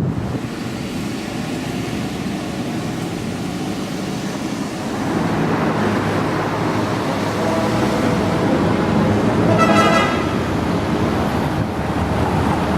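Road traffic: vehicles passing with a steady rush of tyre and engine noise that grows louder about five seconds in. A short car-horn toot sounds near the end.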